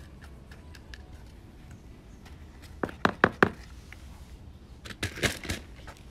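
A quick run of four or five sharp knocks about three seconds in, then a few softer clicks and a rustle around five seconds, over a faint background.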